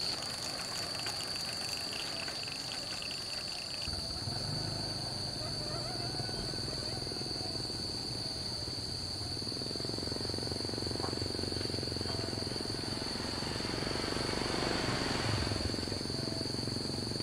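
Crickets trilling steadily at a high pitch. From about four seconds in, a low engine hum joins and grows louder near the end.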